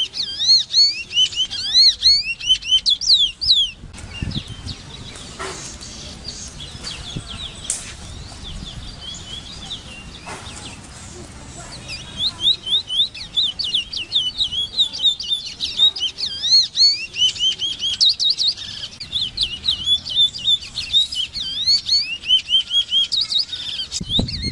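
Large-billed seed-finch singing: fast runs of clear, rapidly slurred whistled notes. The song breaks off about four seconds in and resumes after a pause of about eight seconds.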